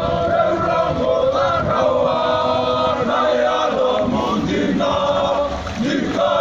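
A group of men chanting and singing together, with long held notes in several voices.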